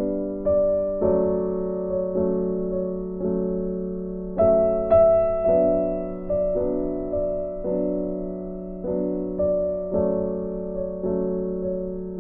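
Slow piano music: single notes and chords struck about once or twice a second, each one fading away before the next.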